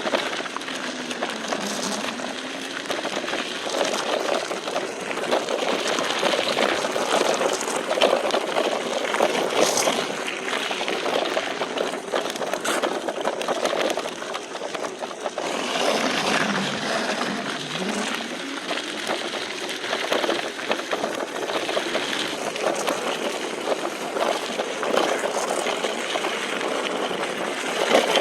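Battery-powered electric go-kart driving over a rocky dirt track: a steady rolling and crunching of wheels on the ground, with a motor whine that dips in pitch twice as the kart slows and picks up again.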